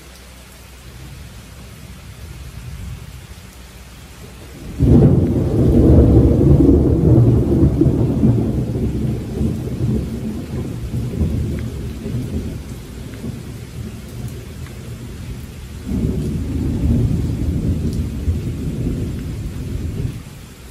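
Rain falling steadily, with a roll of thunder breaking in suddenly about five seconds in and rumbling on for several seconds, the loudest sound, and a second roll of thunder starting near the end.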